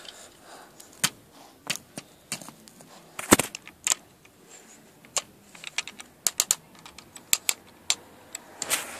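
Lego bricks being handled, pulled apart and snapped back together by hand while a small Lego mech is transformed: irregular sharp plastic clicks, the loudest about three seconds in.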